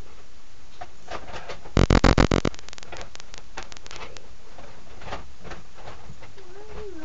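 A loud rattle of quick pulses lasting under a second, about two seconds in, then scattered clicks and knocks of objects being moved about while someone searches through things.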